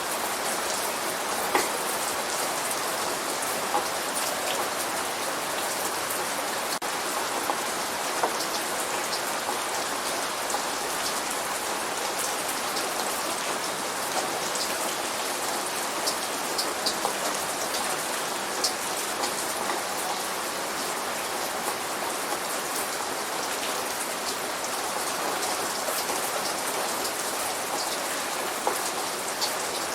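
Steady light rain falling on a surface, with many individual drops ticking and pattering through a constant hiss; no thunder in this stretch.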